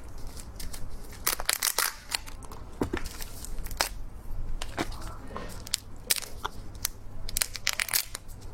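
Close-up crunching and crackling of someone eating, irregular sharp crunches one after another.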